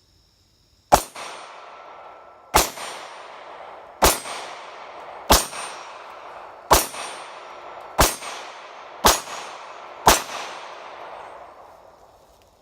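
Glock 43 9mm pistol firing eight shots at a steady pace, about one every 1 to 1.5 seconds, each crack followed by a long echo. It is a test string on a freshly installed stainless recoil spring and guide rod.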